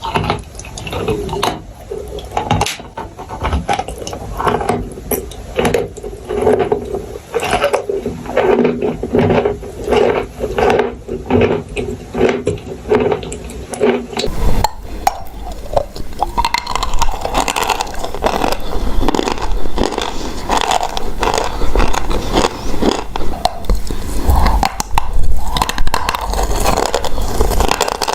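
Close-miked crunching of chalk and clay: a steady run of crisp crunches and crackles, changing abruptly about halfway through.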